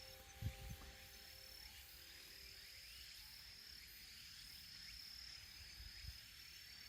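Near silence: faint outdoor ambience with a thin, steady high-pitched tone setting in about two seconds in, and a brief low bump about half a second in.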